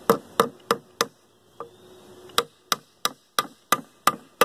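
Small hammer striking a wooden beehive frame, nailing it together, with sharp blows about three a second. A short run of strikes, a pause of over a second, then a second run of about seven strikes.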